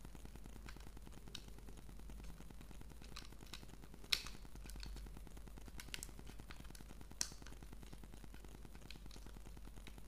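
Faint scattered plastic clicks and handling noise as a micro-USB plug is fitted into the IP camera's socket. The sharpest click comes about four seconds in and another about seven seconds in, over a low steady hum.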